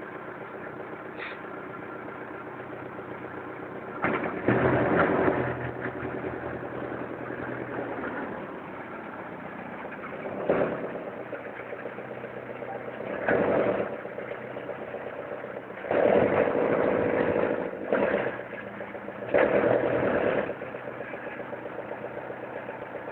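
Boat engine idling steadily, with short surges of throttle about six times as the boat is manoeuvred into its moorage slip.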